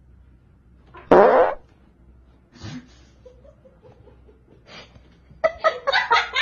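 A single short fart, loud, lasting about half a second, about a second in.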